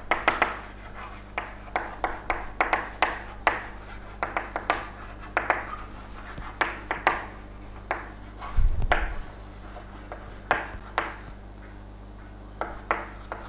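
Pen or marker writing: irregular scratching and tapping strokes, several a second, with a low thump about two-thirds of the way through and a brief lull near the end.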